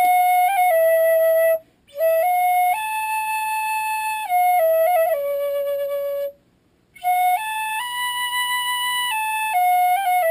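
A tin whistle played solo: a slow tune of held notes, stepping up and down. The tune stops twice for a breath, about one and a half seconds in and about six seconds in.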